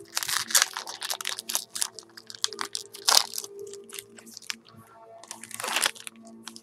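Foil wrapper of a 2013 Bowman Jumbo baseball card pack being torn open and crumpled by hand: a quick, uneven run of sharp crinkles and crackles, loudest about three seconds in and again near six seconds.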